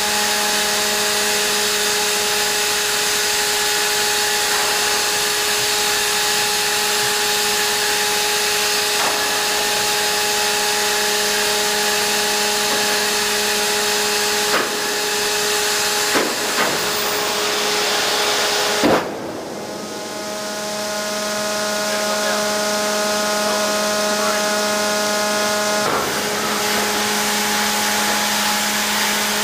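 B-1B main landing gear retracting on its hydraulics, under a loud, steady machine whine made of several fixed tones. A few clicks come past the middle, then a loud clunk a little over halfway through as the gear and its doors move up, and another click near the end.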